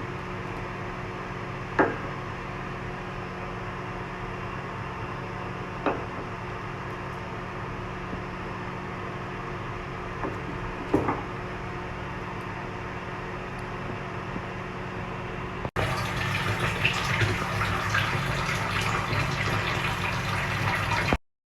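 A steady electrical hum with a few light clinks, then, after an abrupt cut, a louder rushing, water-like noise for about five seconds that stops suddenly.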